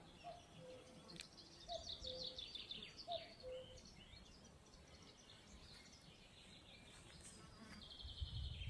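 Faint birdsong from the riverside pine woods: high trilling songs and a low, falling two-note call repeated three times in the first few seconds, then only a faint outdoor hush.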